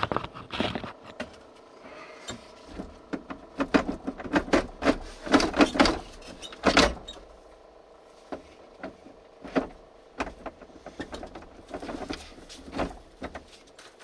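Clicks, clanks and knocks of hand tools on the steering wheel of a MAZ truck as its nut is undone and the wheel worked off its splined column, in a quick flurry about four to seven seconds in and scattered knocks after.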